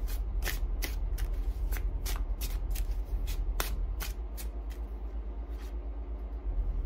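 A deck of tarot cards shuffled by hand: short, sharp slaps of cards against each other, about three a second, growing fainter over the last couple of seconds.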